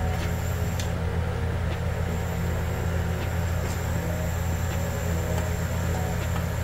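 A steady low mechanical hum with several faint, light knocks of a wooden spoon against an aluminium pot as boiled potatoes are mashed with butter.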